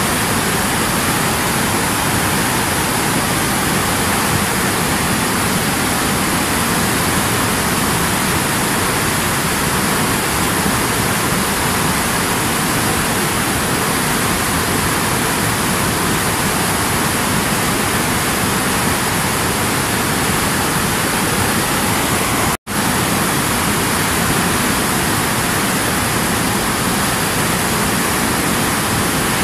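Fast white-water mountain river rushing over rocks, a steady, dense roar of water. It is broken once, about three-quarters of the way through, by a split-second gap of silence.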